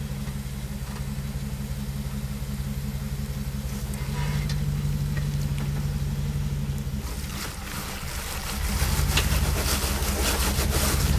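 Off-road 4x4's engine running at a low, steady note, then, about eight seconds in, dipping briefly before picking up louder as the truck is driven at an obstacle.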